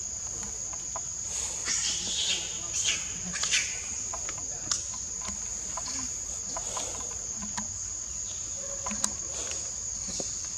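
Steady high-pitched drone of insects, with a few short clicks and rustles scattered through it.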